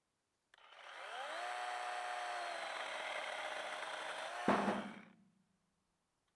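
Small electric chainsaw with a 30 cm bar, its motor spinning up with a rising whine and then running steadily. About four and a half seconds in there is a sharp loud clack, and the motor winds down and stops.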